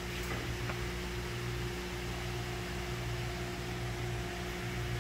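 Steady electric motor hum of a stainless-steel drum-handling post lift as it moves the drum and mill into position, with a couple of faint ticks about half a second in.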